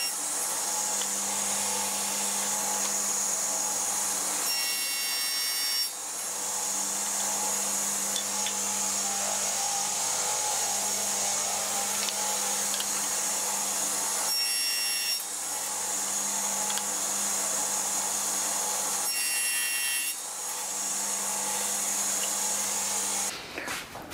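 Table saw running steadily while mitre cuts are made in walnut strips, with about three short cuts where the pitch of the sound changes as the blade goes through the wood. The saw is switched off near the end.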